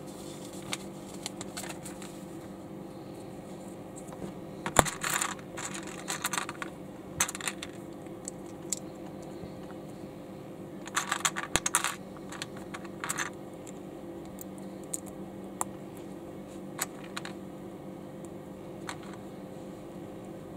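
Small plastic LEGO bricks clicking and clattering as they are handled. There are scattered single clicks and two short bursts of rattling, one about four to six seconds in and one about eleven seconds in.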